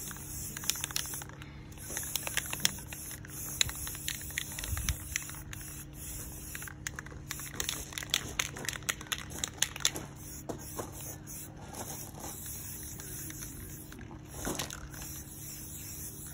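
Aerosol spray-paint can hissing in long bursts, stopping briefly three times, with scattered clicks and taps.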